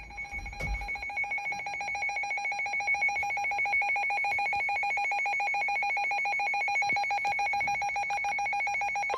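Weather alert radio sounding its electronic alarm: a rapid, trilling two-tone warble that rings steadily and without a break, signalling an incoming severe thunderstorm warning.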